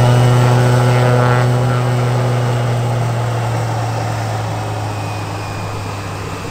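Cessna 208B Grand Caravan EX's Pratt & Whitney PT6A-140 turboprop and propeller running: a steady deep drone with a stack of higher tones above it. It is loudest in the first second or two, then slowly fades.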